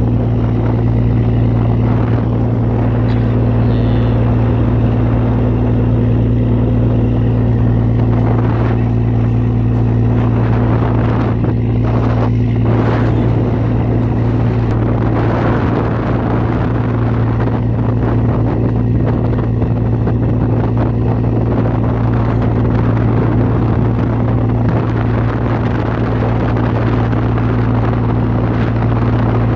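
Fishing boat's inboard engine running at a steady hum, over a rushing noise of water along the hull.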